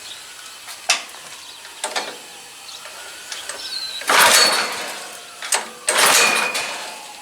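Small engine being pull-started twice, the recoil starter rope whirring as the engine turns over without firing. After a clogged fuel settlement bowl was cleared, it still may not be getting gas.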